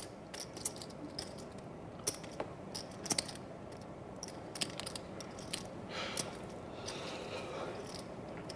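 Poker chips clicking and clacking irregularly as they are handled at the table: short, sharp clicks, sometimes in quick clusters, over a low room hush.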